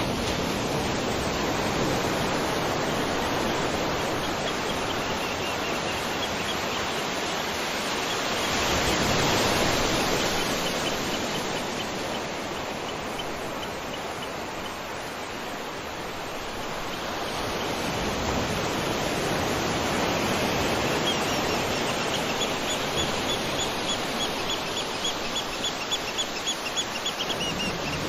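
Waterfall rushing steadily, swelling and easing a little in strength. Faint, rapid, high chirping sits behind it a few seconds in and through most of the second half.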